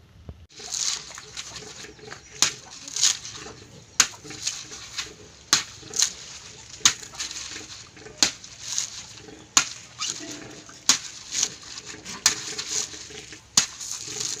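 A bolo knife striking a husked coconut again and again to crack it open: a sharp hit about every second and a half, often followed by a lighter tap.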